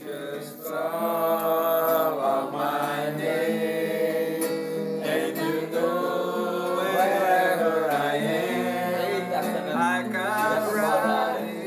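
A man singing long, held notes with acoustic guitar accompaniment.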